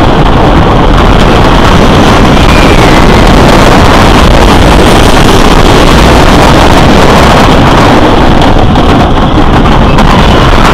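Lightning Racer wooden roller coaster train running at speed along its wooden track, with wind blowing hard across the microphone. Loud and steady throughout.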